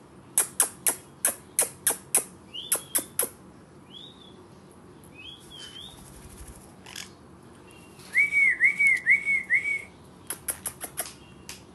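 Pet green-cheeked conures (yellow-sided and pineapple colour forms) chirping: a few short rising-and-falling calls, then a quick run of four loud chirped notes. Runs of sharp clicks, about three a second, come and go between them.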